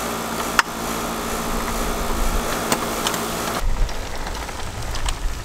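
A steady hum from a running air-conditioning unit, with a sharp plastic click about half a second in as the hose is set into the hose reel cart's holder. A little over halfway through, the sound cuts to a low rumble of the cart's wheels rolling over concrete.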